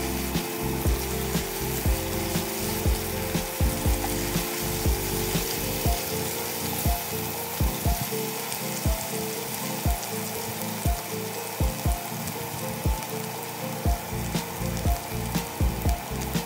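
Minced garlic sizzling in hot oil in a cast-iron skillet, stirred with a silicone spatula, with background music playing underneath.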